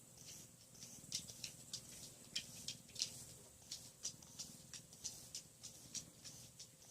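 Faint, quick swishes of a pet brush drawn through an animal's fur, about three strokes a second at an uneven pace.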